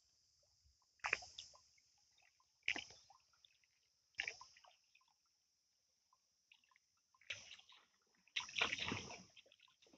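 Wooden paddle strokes splashing and dipping into creek water, one every second and a half or so, with a longer, louder stretch of splashing near the end.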